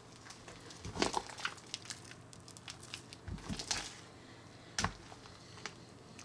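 Two batches of slime made with slime powder being squeezed and kneaded together by hand, giving irregular sticky squelches and crackles, loudest about a second in and just before five seconds.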